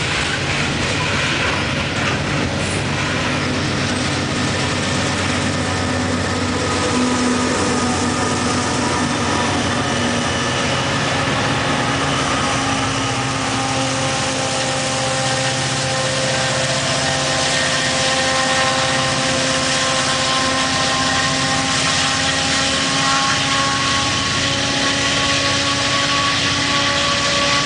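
Diesel-electric freight locomotives, the distributed-power units pushing a loaded BNSF coal train, passing under power: a steady engine drone with several held whining tones over the rumble of the train rolling on the rails.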